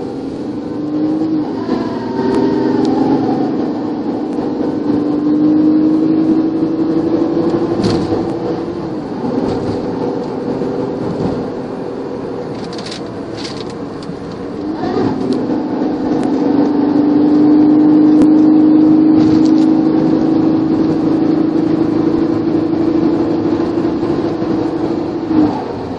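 Mazda Tribute's 3.0-litre V6 and its automatic transmission brought up in revs and held twice, a steady droning tone rising as the revs come up and falling back as they are released: the abnormal noise traced to the torque converter.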